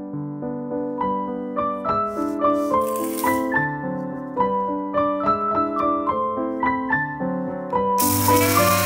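Piano background music. Near the end an electric spice grinder starts running with a steady whir as it grinds whole roasted spices and dried red chillies to powder.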